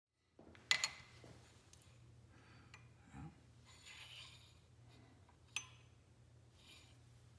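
Metal clinks and light knocks as a small pump casting and a steel parallel are set into a milling-machine vise. The sharpest clink comes just under a second in, another near the six-second mark, with a faint low hum underneath.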